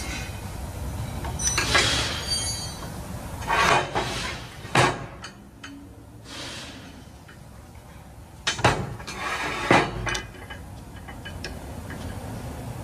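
Metal tools and brake parts clinking and clanking as they are handled. There are about half a dozen separate knocks, some with a brief metallic ring, and a quieter stretch in the middle.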